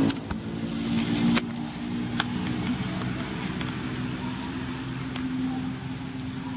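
A steady engine hum, with a few sharp clicks in the first couple of seconds.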